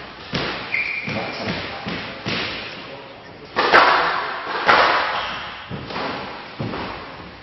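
Squash rally: the ball is struck by the rackets and slaps off the front wall and glass walls in a run of sharp smacks, each ringing on in the hall. The two loudest come about three and a half and four and a half seconds in. A brief high shoe squeak on the court floor comes about a second in.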